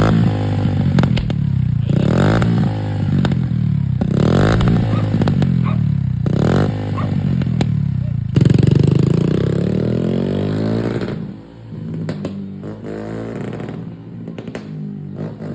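Small 50cc motorcycle engine revved hard several times, each rev a rising whine about two seconds apart, then its sound drops away and fades about eleven seconds in as it rides off.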